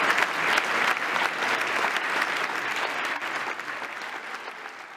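Large audience applauding, dense clapping that gradually dies down.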